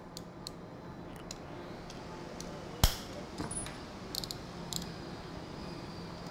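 Scattered light clicks and taps, one sharper about three seconds in, from a utility knife and a thin template being handled on a red oak board while a knife line is scored into the wood.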